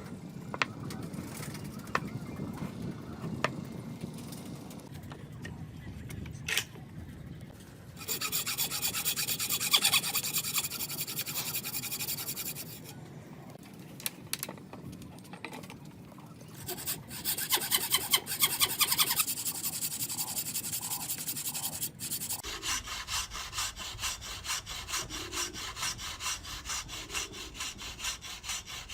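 Hand saw cutting wood in quick, even back-and-forth strokes, in several spells with short pauses between them; quieter scraping and a few knocks come before the first spell.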